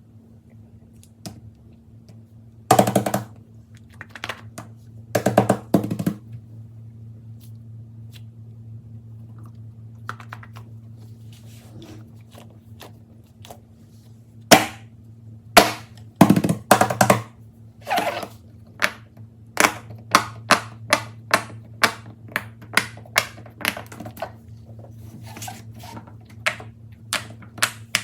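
Fidget toys being clicked and popped by hand: sharp clicks and pops over a steady low hum. There are two quick rattling clusters in the first six seconds, then a run of separate clicks at about two a second in the second half.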